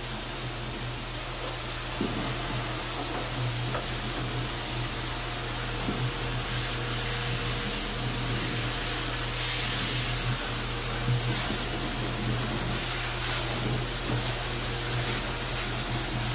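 CNC machine's coolant wash gun spraying a steady jet of coolant into the chip trough, a continuous hiss as it flushes aluminum chips toward the chip auger; the spray is briefly louder about ten seconds in. A low steady hum runs underneath.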